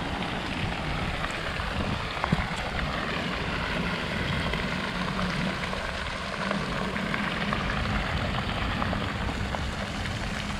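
Steady rush of water from fountain jets splashing into a pool, with rain falling; a brief knock a little over two seconds in.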